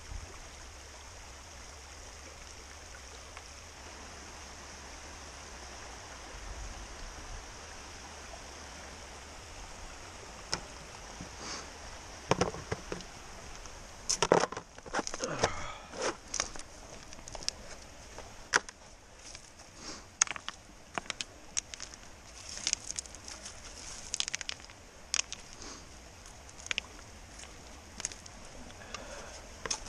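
Steady rush of a small creek. From about ten seconds in, irregular sharp clicks, knocks and scrapes of stones and gravel being worked with a hand trowel, a few of them loud.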